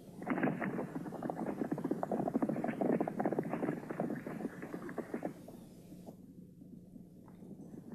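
Hoofbeats of several horses riding on hard ground, a dense clatter that stops about five seconds in. Over it runs a faint steady hum from the old soundtrack.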